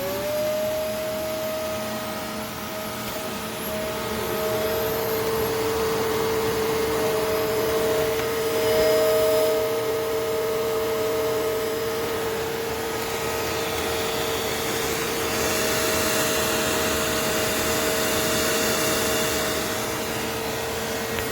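Upright vacuum cleaner switched on, its motor spinning up within a moment to a steady whine and running on.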